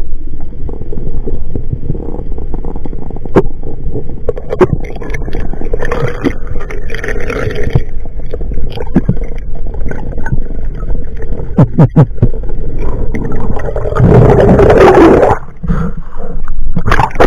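Underwater water noise on a diver's camera: a steady rush and gurgle with scattered clicks and knocks. About fourteen seconds in comes a loud rush of churning water as the diver breaks the surface.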